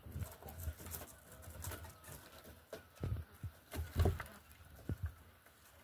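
Kittens scuffling and wrestling on wooden boards and against a woven basket: soft thumps, pattering and rustling, loudest around three and four seconds in. Faint bird calls sound in the background.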